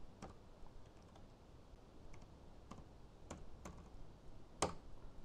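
Faint, scattered key taps on a computer keyboard as figures are typed in, about a dozen separate clicks with one sharper tap near the end.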